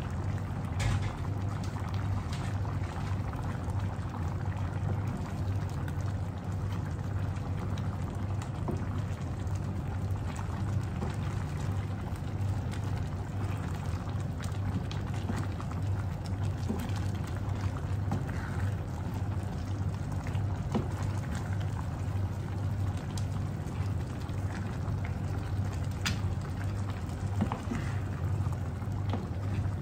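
Coconut cream simmering and bubbling in a pan over a gas burner, with a steady low hum underneath. A wooden spatula stirring the crabs and prawns gives a few light knocks against the pan.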